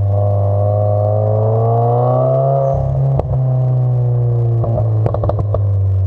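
Exhaust of a 2016 Subaru WRX's turbocharged 2.0-litre flat-four, heard close up at the rear bumper while driving. A steady low drone rises in pitch over the first couple of seconds, then eases off and slowly falls, with a few sharp cracks about three seconds in and around five seconds in.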